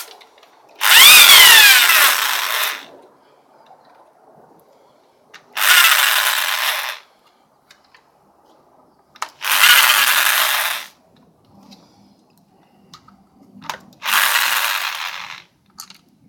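Handheld power tool run in four short bursts of about one and a half to two seconds each, a few seconds apart, the first burst the longest and loudest.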